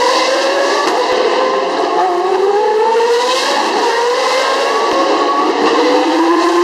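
GP2 race cars' 4-litre Mecachrome V8 engines at full throttle, several cars passing in turn. Their engine notes overlap, each climbing in pitch as the cars accelerate away.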